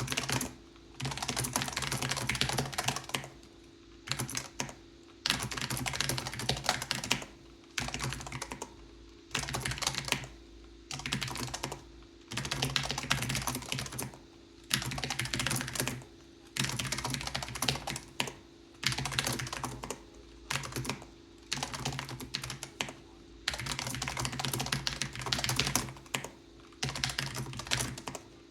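Keychron J1 mechanical keyboard with linear red switches being typed on, fast runs of key strokes in bursts of a second or two with short pauses between them.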